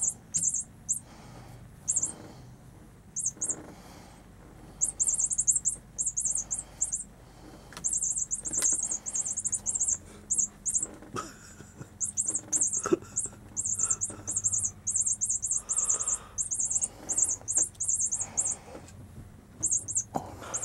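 Repeated short, high-pitched chirps in quick clusters, with a few soft knocks between them and a faint steady hum underneath.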